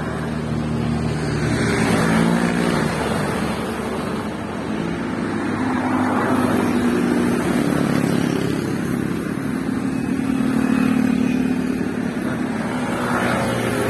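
Road traffic: cars and motorcycles driving past, their engines swelling and fading several times over a steady hum of tyres and traffic.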